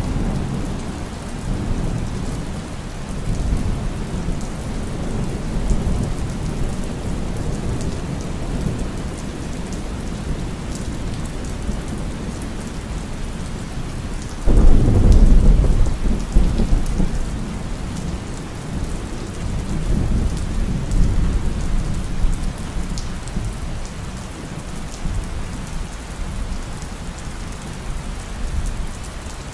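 Thunderstorm ambience: steady rain with a low rumble underneath and a few softer swells. About halfway through, a loud roll of thunder starts suddenly and fades over a few seconds.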